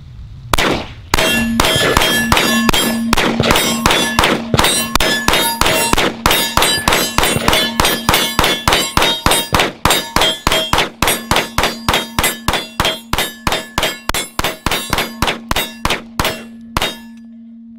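Gen 4 Glock 19 9mm pistol firing a steady rapid string, about three shots a second, emptying a 50-round drum magazine of Tula 115-grain steel-case rounds without a stoppage. The shots stop near the end. A steady ringing tone hangs under the shots and carries on after the last one.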